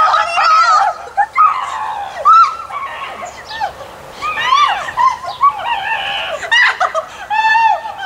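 Young girls' high-pitched squeals and shrieks, many short rising-and-falling cries in quick succession.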